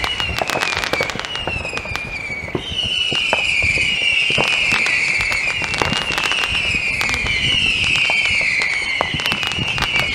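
Fireworks going off across a town, with many pops and crackles. Over them runs a loud, high whistle that falls in pitch again and again, each sweep lasting about a second and a half, with a short break about two seconds in.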